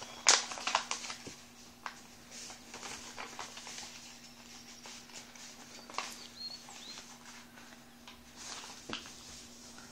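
A sheet of paper being folded by hand: crinkling and rustling as creases are pressed and reverse-folded, with a sharp crackle about a third of a second in. A faint steady hum runs underneath.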